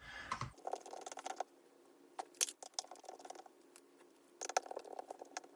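Faint clicks and light rattles of small tools and parts being handled during a laptop teardown, in three short spells.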